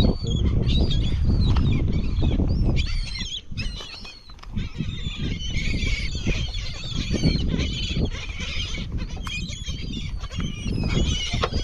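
A flock of seabirds calling constantly over a school of baitfish, many short shrill chirping cries overlapping, over a steady low rumble.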